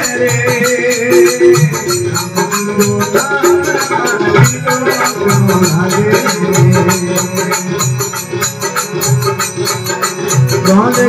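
Live Rajasthani bhajan music: a harmonium plays the melody over a dholak beat, with a quick, steady jingling rattle keeping time.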